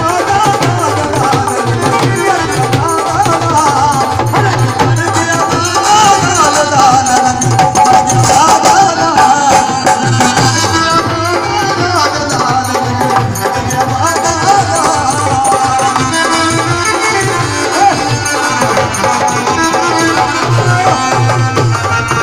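Live Punjabi devotional folk music: hand-played dholak barrel drums keep a fast, steady beat under a wavering sung melody.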